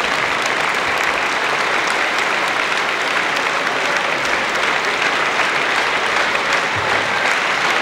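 Large audience applauding steadily, a dense even patter of many hands clapping.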